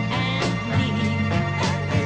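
Late-1960s pop-soul song recording playing: a full band with a steady bass line under the melody.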